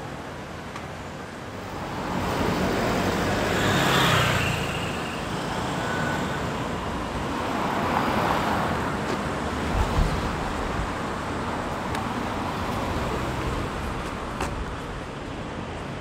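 City road traffic with cars driving past, the loudest swelling up and passing about four seconds in and another around eight seconds in. A short low thump comes about ten seconds in.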